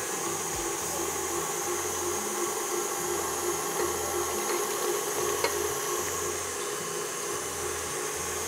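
KitchenAid Artisan stand mixer running steadily with a motor whine, its beater creaming butter and brown sugar as the eggs go in.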